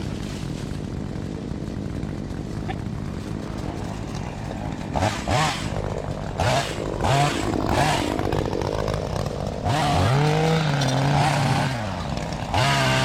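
Gasoline chainsaw idling, then revved in several short bursts, with a longer burst held at high revs for about two seconds near the end.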